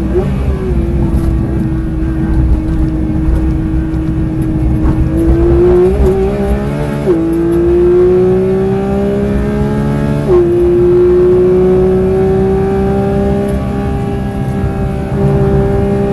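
Porsche 992 GT3's naturally aspirated flat-six, heard from inside the cabin at racing speed. It holds a steady note through a corner, then pulls hard with rising pitch, with two quick upshifts, the second about ten seconds in.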